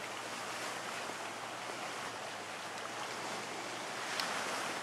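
Steady wind and choppy lake water washing, an even rushing hiss.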